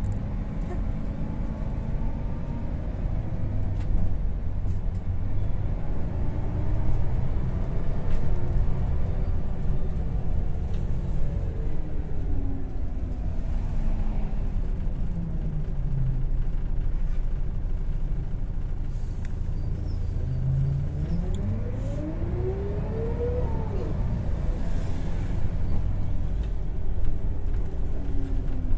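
Volvo B10BLE single-deck bus on the move, heard from inside the saloon: a steady low engine and road rumble. The engine note falls around the middle, then rises steeply and drops back.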